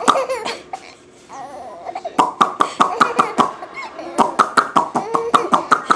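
Baby laughing in runs of rapid, breathy bursts, about five a second, with a pause around the first second and a shorter one midway.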